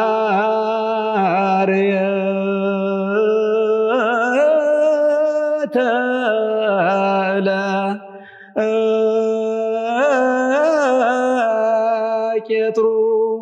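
A solo male voice sings Ethiopian Orthodox liturgical chant (wereb) in Ge'ez. Each syllable is drawn out over long melismatic notes with wavering ornaments, and the voice breaks off briefly for a breath about eight seconds in.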